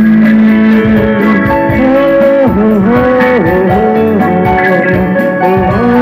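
Live band music in an instrumental passage: an electric guitar plays the bending lead line over keyboard and percussion.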